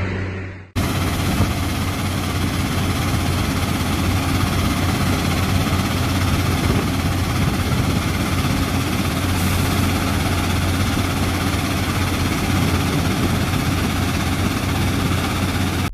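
Keestrack R6 mobile impact crusher running under load, crushing volcanic rock, with crushed rock pouring off its stockpile conveyor: a steady, dense machinery noise with a strong low drone. It cuts in abruptly less than a second in.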